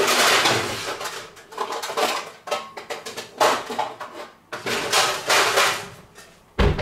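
Metal baking pans clattering and scraping as a stainless-steel tray is pulled out from among them, in irregular bursts, with a dull thump near the end.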